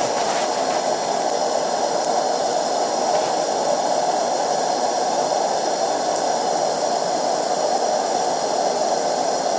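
Homemade blast furnace firing flat out: a steady rushing noise of burner flame, with the gold in its crucible already molten.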